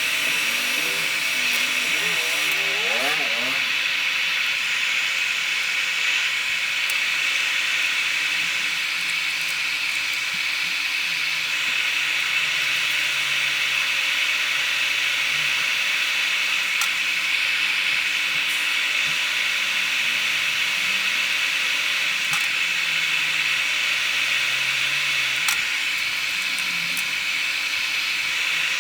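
Hot air rework station blowing a steady hiss of hot air, reflowing solder on a phone motherboard.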